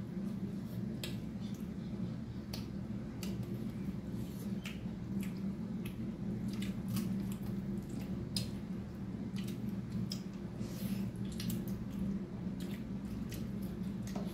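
Close-up eating sounds: wet chewing, lip smacks and fingers squishing rice and pork trotter, heard as many short irregular clicks over a steady low hum.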